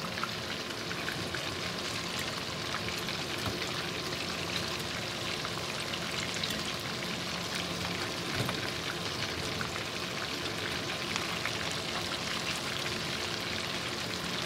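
Salmon pieces shallow-frying in hot oil in a pan, a steady sizzle with fine crackling.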